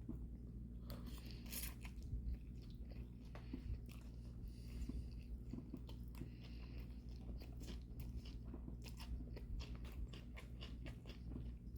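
Close-miked eating sounds: lo mein noodles dressed in sweet and sour sauce being chewed, with many irregular wet clicks and smacks of the mouth.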